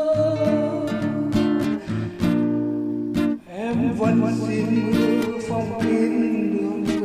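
Background music of a slow ballad, led by acoustic guitar picking and strumming, with a dip about three and a half seconds in.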